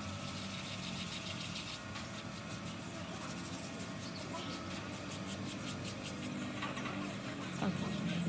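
A machine motor running steadily, with a fast train of light ticks through the middle.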